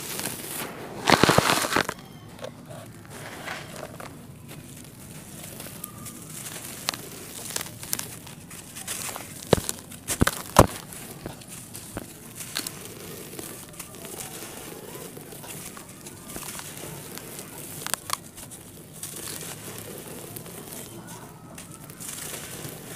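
Hands crumbling and crushing dry red dirt: a loud gritty rush of poured dirt about a second in, then soft crunching and crackling as a dry pressed block is broken apart, with a few sharp snaps of lumps cracking midway and again later.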